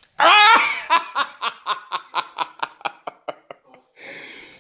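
A loud cry, then a person laughing in a run of short "ha" pulses, about four a second, fading away.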